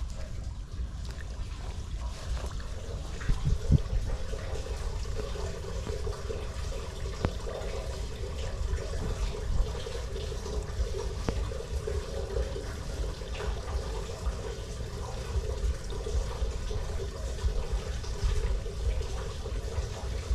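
Floodwater trickling and gurgling steadily into a curb storm drain inlet that is partly clogged with reeds, sticks and litter.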